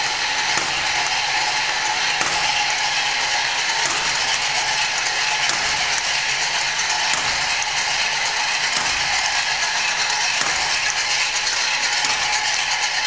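Barbed wire making machine running fast, its electric motor driving chains, belts and the wire-twisting head: a steady, dense metallic rattle and clatter with a faint steady whine under it.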